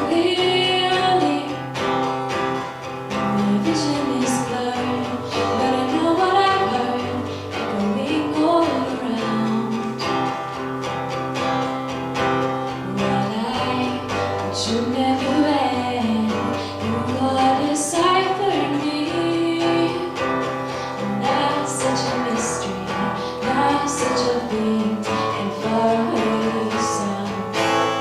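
A song sung to acoustic guitar accompaniment: a voice carries a flowing melody over strummed and plucked guitar chords.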